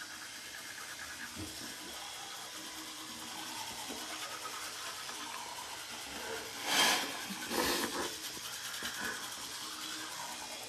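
Several toothbrushes scrubbing teeth in a small room, with the faint buzz of an electric toothbrush. Two short, louder rushes of noise come about seven and eight seconds in.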